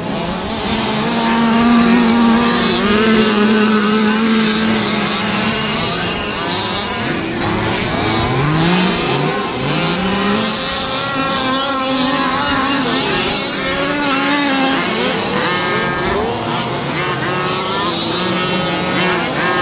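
Several large-scale (1/5) RC cars running around a dirt track, their small two-stroke petrol engines revving up and down, with several overlapping engine notes rising and falling in pitch.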